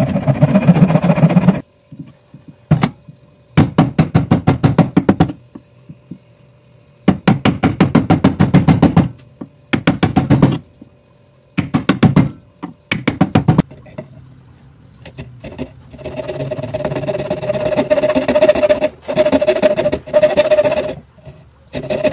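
Hand sawing of wood: several bursts of quick back-and-forth saw strokes with pauses between them and a few single knocks. Later comes a steadier cut with a thin-bladed frame saw that carries a ringing note.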